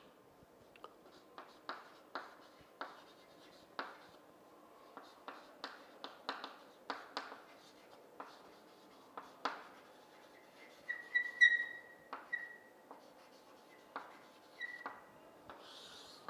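Writing by hand: a pen or marker tapping and scratching in short separate strokes, a few per second. There are a few brief high squeaks about two-thirds of the way through.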